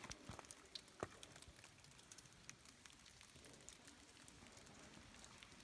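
Near silence, with faint scattered ticks and one sharper click about a second in.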